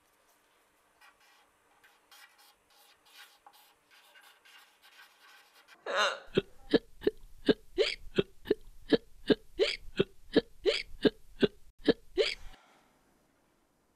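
A person hiccuping in a rapid, even run of about seventeen loud hiccups, roughly three a second, starting about halfway through. Before that there is faint scratching, like a pen drawing on paper.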